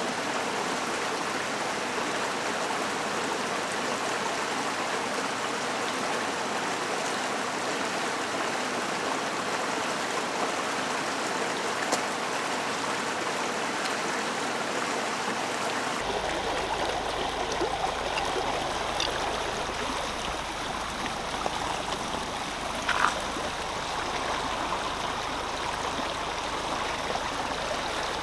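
Shallow rocky creek running steadily, an even rush and trickle of water, with one brief knock late on.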